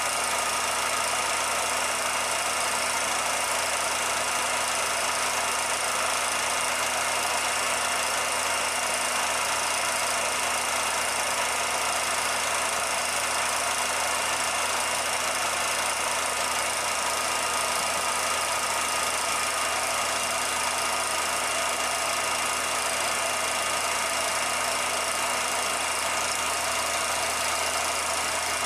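Steady machine hum with an even hiss, unchanging throughout. It is not a sound of the pictured scene, since the film is silent.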